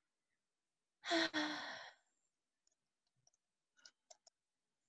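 A person sighs once, a breathy, voiced sigh lasting about a second that falls slightly in pitch, followed by a few faint clicks near the end.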